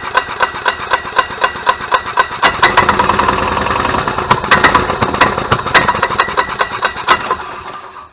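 1998 Club Car DS golf cart gas engine running with a misfire: a steady run of sharp pops about three or four a second, swelling briefly in the middle as it tries to pick up, then dying away near the end. The popping and skipping is still there with a new RPM limit box fitted, which points to a faulty ignition coil with its built-in igniter.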